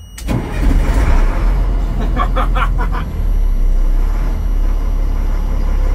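A military truck's engine starting up: it catches within the first second and settles into a loud, steady low-pitched run.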